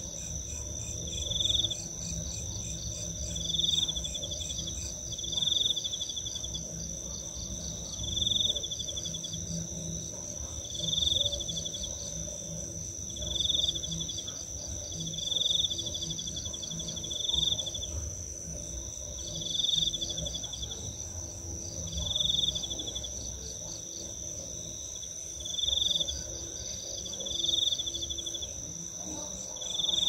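Night insect chorus: crickets keep up one steady high trill while a second insect calls in short buzzy pulsed bursts about every two seconds, the bursts being the loudest sound.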